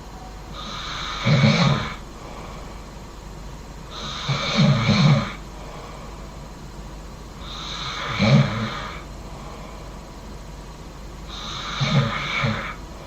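A person snoring loudly: four snores about every three and a half to four seconds. Each is a low rattling snore with a breathy hiss, with quiet breathing between them.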